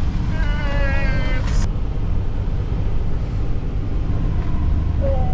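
Motorhome driving slowly over a rough, unpaved gravel road, heard from inside the cab: a steady low rumble of engine and tyres. About half a second in there is a short high-pitched tone lasting about a second.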